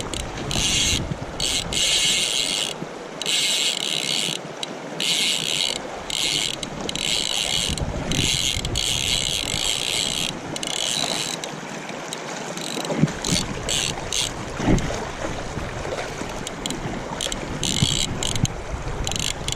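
Click-and-pawl fly reel ratcheting as the spool turns, in repeated spurts of a second or so with short breaks between them.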